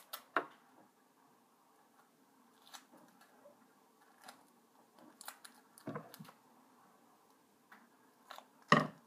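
Quiet handling of sticky tape and an elastic band, with small scattered rustles and clicks, then a pair of scissors snipping shut near the end, the loudest sound.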